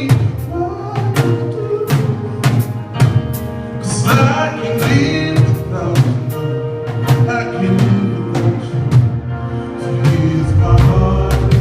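Gospel music: a drum kit playing a steady beat, about two hits a second, under singing and sustained chords.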